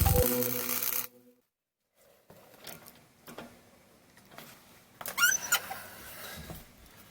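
Background music cuts off abruptly about a second in. After a second of silence come faint clicks and knocks, and a brief, high, wavering squeak about five seconds in.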